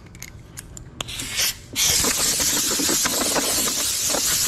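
A few light clicks as a blow gun is snapped onto an air hose's quick coupler, then a couple of short puffs of air. About two seconds in, a loud steady hiss of compressed air starts from the blow gun, blowing dust off the freshly ground motorcycle fender.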